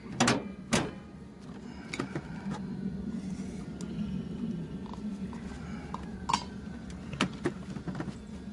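Metal tools clinking and knocking against car parts during a repair, a scattered series of sharp clicks with two close together at the start and more near the end, over a low steady hum.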